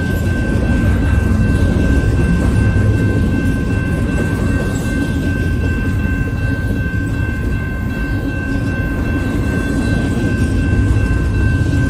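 Double-stack container well cars of a freight train rolling past close by: a loud, steady rumble of steel wheels on rail, with a steady high tone over it.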